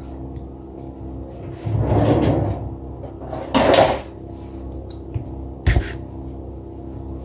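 Kitchen handling noises: a plastic syrup bottle's cap and seal being worked at and scissors being handled, giving a rustling scrape about two seconds in, a louder clatter a little later and a sharp knock near the end, over a steady low hum.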